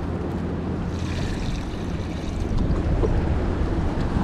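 Sea surf washing over shore rocks, with wind buffeting the microphone; a brief brighter hiss rises between about one and two and a half seconds in.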